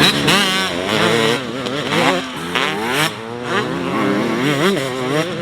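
Motocross bike engine revving, the throttle blipped up and down again and again so the pitch rises and falls repeatedly.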